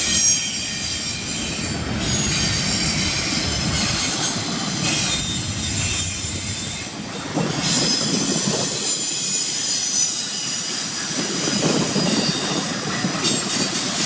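Double-stack intermodal well cars rolling past with a steady rumble of wheels on rail. Over it runs a high-pitched metallic wheel squeal of several tones, which cuts out briefly two or three times and returns.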